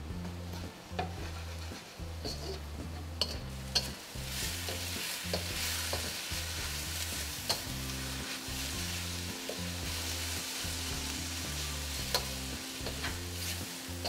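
Instant noodles, chicken and vegetables sizzling in a wok over high heat while being stir-fried quickly, with scattered clicks and scrapes of the spatula against the pan. The sizzle grows louder about four seconds in. Background music with a bass line plays underneath.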